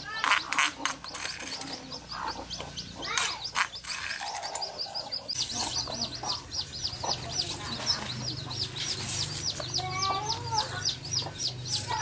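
A cleaver hacking into a peeled green papaya in quick, even strokes, about five a second, starting about halfway through. Before that, a spoon knocks and scrapes in a mortar. Chickens cluck now and then.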